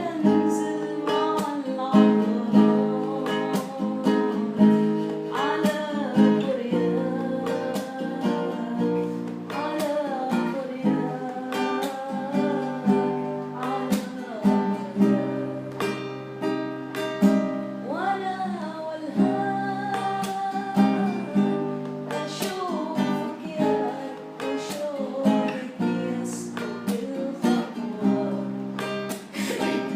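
A voice singing an Arabic song to a strummed acoustic guitar.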